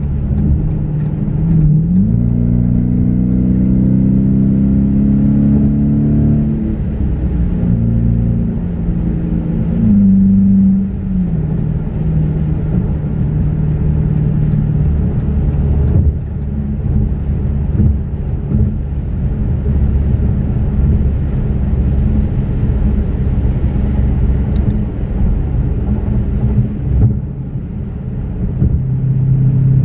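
Dodge Challenger R/T's 5.7-litre HEMI V8 and tyre noise heard from inside the cabin at freeway speed. The engine note rises in pitch for a few seconds near the start as the car accelerates, drops about ten seconds in, then holds a steady cruise.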